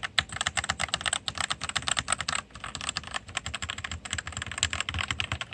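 Fast, continuous typing on a Monster Gear Ninja 87 RGB hot-swap mechanical keyboard: rapid, dense key clicks, with a brief pause about two and a half seconds in.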